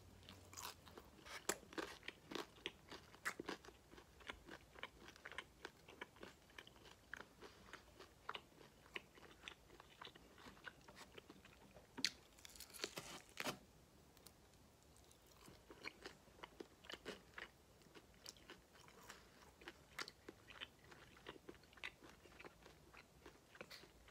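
A person biting and chewing chicken wings close to the microphone: quiet, with many short sharp mouth clicks and crunches throughout, and a louder cluster about twelve to thirteen seconds in.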